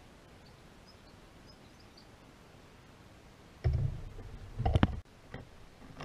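Heavy rumbling and knocking close to the microphone, with sharp clicks, lasting about a second and a half from a little past halfway, as the camera is jolted on its mount in the tree; a smaller knock follows. Faint bird chirps before it.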